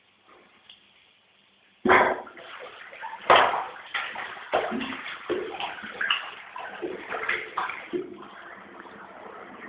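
Water splashing in a shower tray, starting suddenly about two seconds in and running on with uneven splashes.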